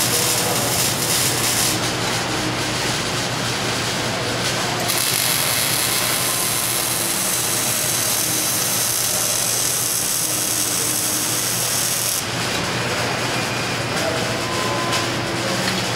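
Steady welding arc noise as a bracket is welded up, with a brighter, harsher hiss from about five to twelve seconds in.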